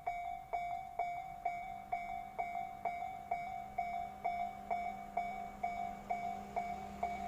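Japanese railway level-crossing warning bell ringing: an electronic ding at one steady pitch, repeating about twice a second. A low steady hum joins under it about a second and a half in.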